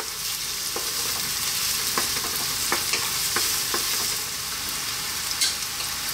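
Onions, garlic and olives sizzling in olive oil in a wok, with a steady hiss. A wooden spatula scrapes and taps the pan over the first few seconds, then the stirring stops and only the sizzle goes on.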